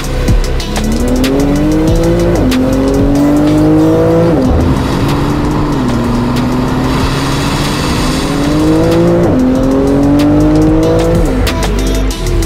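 Twin-turbo flat-six of a tuned Porsche 991.2 GT2 RS, breathing through a Fi Exhaust catback with catless downpipes, accelerating hard. Its note climbs in pitch and drops sharply at each upshift, several times.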